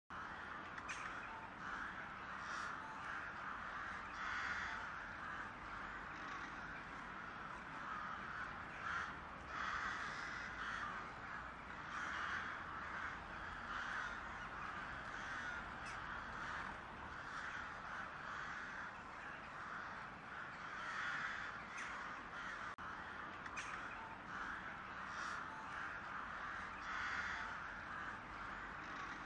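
Crows cawing, short calls at irregular intervals, over a steady background hiss.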